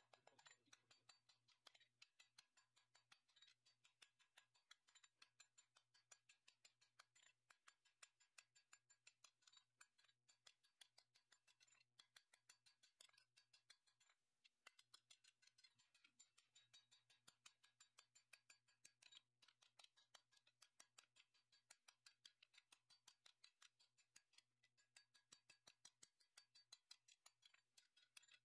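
Faint, rapid hammer blows on a red-hot steel sword blade lying on an anvil, about four to five strikes a second, over a steady low hum.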